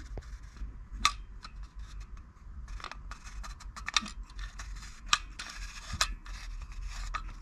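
Plastic parts of a toy Omnitrix watch being handled and lined up: light rubbing and scrapes with scattered sharp clicks, the clearest about a second in and again around three, four, five and six seconds in.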